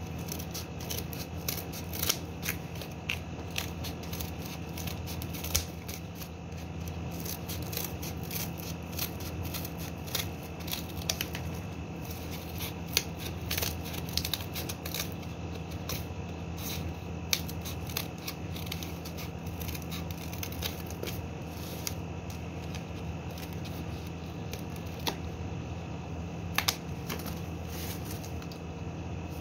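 Scissors snipping through corrugated cardboard in a long run of irregular cuts with sharp clicks, over a steady low hum.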